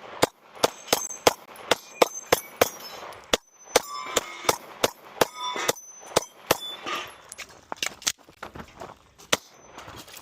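Pistol shots fired in fast strings, about two to three a second, with short pauses between strings, as the shooter works through a stage. Steel targets ring with a metallic ping after many of the hits.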